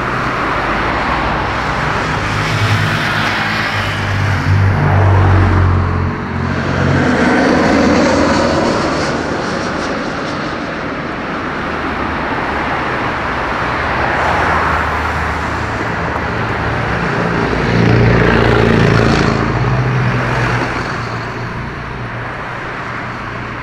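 Airliner jet engines running, rising and falling in swells: the Boeing 747-400F freighter's four engines as it taxis onto the runway, with a twin-jet airliner passing on its landing around the middle.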